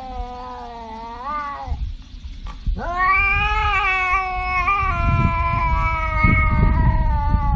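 Tabby cat yowling in long drawn-out meows: one call ends with an upward bend about two seconds in, then after a short pause a second, longer call slowly falls in pitch. A low rumbling noise runs underneath in the second half.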